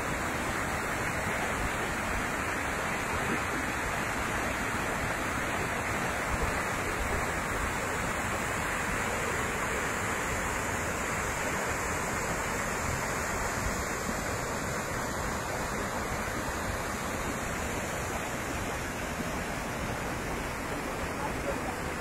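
Waterfall plunging into a pool below: a steady, even rush of falling water.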